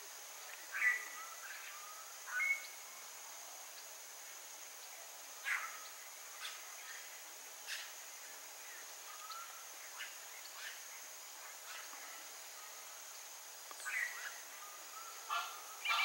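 Short, scattered bird calls, about half a dozen brief chirps, over a steady high-pitched insect drone.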